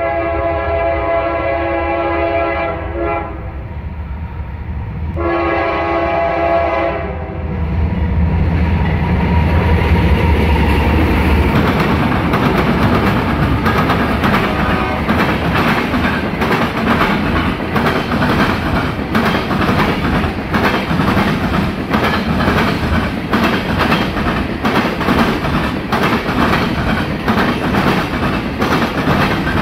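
A CSX diesel freight train's horn sounds two long blasts. The locomotives' diesel engines then pass loudly, about eight seconds in. The freight cars follow with a steady clatter of wheels clicking over the track.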